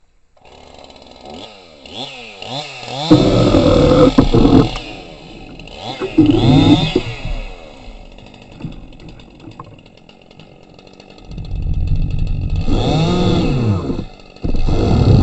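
Small two-stroke engine, most likely a chainsaw, revving up and down in three loud stretches with quieter idling between, starting about half a second in.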